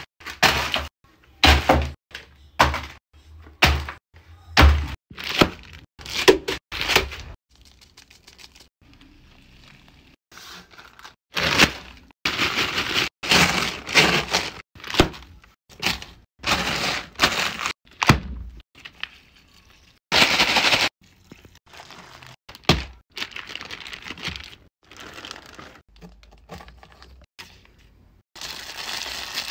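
Bags of Doritos chips and a block of instant ramen being crushed by hand: a run of heavy thumps in the first seven seconds, then long stretches of crackling chips and crinkling plastic bag, with softer rustling near the end.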